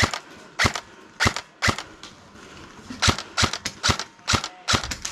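Airsoft gun firing single shots, each a sharp crack: four spaced shots, a pause of about a second, then a faster string of about eight.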